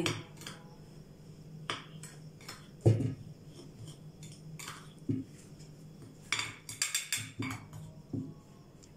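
Metal spoon scraping and clinking against a ceramic plate while stirring a gritty sugar and cinnamon filling, in scattered strokes. There is a heavier knock about three seconds in and a quick run of clicks a little past the middle.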